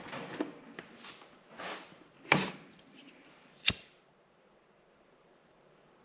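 Handling noise as wires and braided sleeving are worked by hand: a few short rustles and knocks, then a sharp click a little past halfway. After that it falls nearly quiet.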